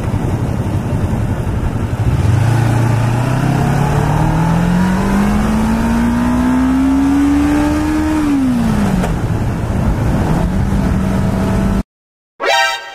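Sport motorcycle's engine pulling steadily up through the revs for about six seconds, then dropping as the throttle is rolled off and settling into a steady cruise, with wind rushing over the microphone. The sound cuts off abruptly near the end, and a brief ringing tone follows and fades.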